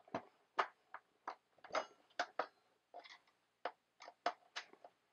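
Hand screwdriver driving a wood screw through a metal toilet mounting bracket into laminate flooring over OSB: a string of uneven clicks and ticks, about three a second, with no cracking from the laminate.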